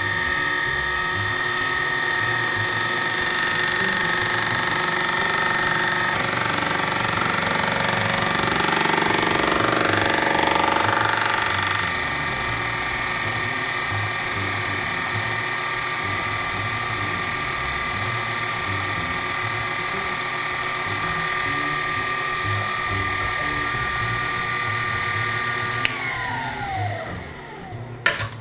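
Sherline milling machine's spindle motor spinning up, then running with a steady whine while a fly cutter takes a facing cut across a metal block. About two seconds before the end it winds down and stops.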